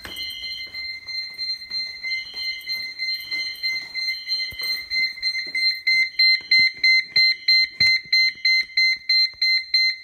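Wheelock HSR Exceeder fire alarm horn sounding in code-3 temporal pattern: half-second blasts in groups with short pauses, the evacuation signal of a fire alarm. Under it runs a shrill rapid beeping, about three beeps a second, which grows much louder about halfway through.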